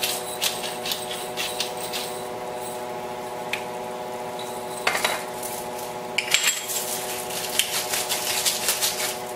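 Salt and pepper grinders twisted over a pan of tomato sauce, giving quick runs of small clicks near the start and again in the second half, with a single knock about five seconds in. A steady hum sits underneath.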